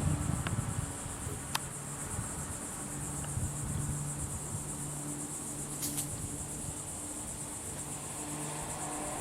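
Insects trilling steadily in a continuous high-pitched chorus, with a faint low hum that comes and goes and a few sharp clicks.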